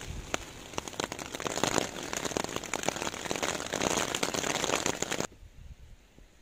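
Rain falling on a wet tarp and tent fly overhead: a dense, uneven patter of drops striking the fabric. It cuts off abruptly about five seconds in, leaving only faint background sound.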